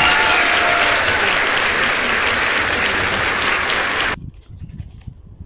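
Applause from a crowd, dense and loud, cutting off abruptly about four seconds in, the way an edited-in sound effect does.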